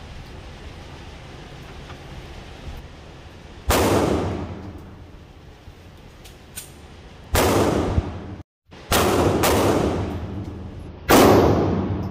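Five rifle shots from an AR-15-style rifle, fired singly at uneven spacing, each a sharp crack followed by a ringing echo off the indoor range's walls.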